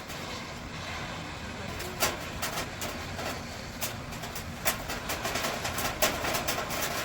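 Street traffic noise on a rain-wet road, slowly growing louder, with scattered sharp ticks.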